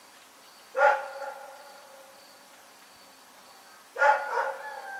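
A dog barking twice, about three seconds apart, each bark sudden and loud and drawn out into a held tone that falls slightly as it fades.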